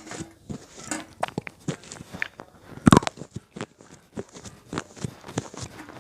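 Cat brand slate pencil being bitten and chewed: a run of irregular dry crunches and clicks, with one louder snap about three seconds in.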